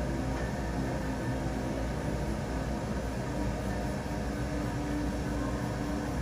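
A steady mechanical hum of background machinery, even in level, with faint steady tones.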